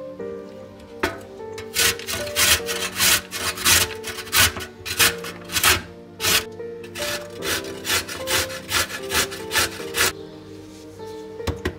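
A carrot being grated on a stainless steel box grater: repeated scraping strokes, about two to three a second, starting about a second in and stopping near the end.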